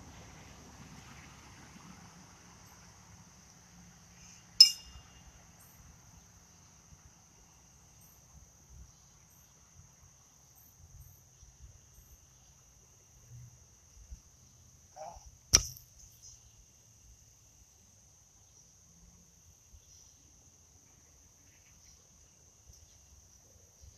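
Insects trilling steadily in the background, broken by two sharp knocks: one about four and a half seconds in, and another about two-thirds of the way through as a pitched horseshoe lands in the near pit by the stake.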